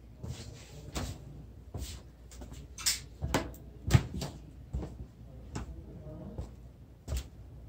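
Footsteps on wooden dock planks: a series of hollow knocks, roughly one every second or less, with the loudest thump about four seconds in.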